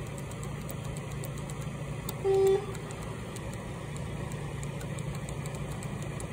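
Hypercharger EV fast-charging station humming steadily while charging a car, with one short electronic beep a little over two seconds in.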